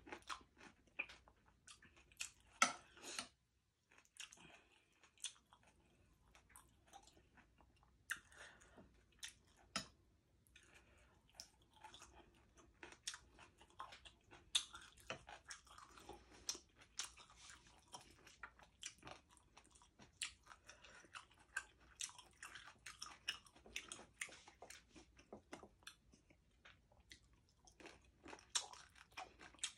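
A person chewing a meal close to the microphone: many soft, irregular wet mouth clicks and smacks, with some crunching.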